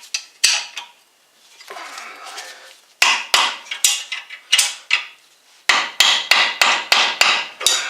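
Two runs of sharp metallic clicks, about three to four a second, from hand tools tightening the brake caliper bracket bolts, with a short rubbing noise before them.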